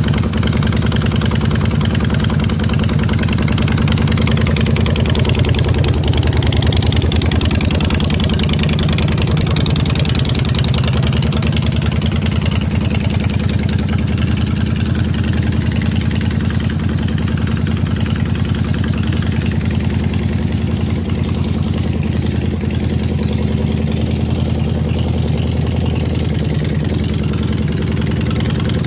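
1968 Harley-Davidson Shovelhead V-twin engine idling steadily.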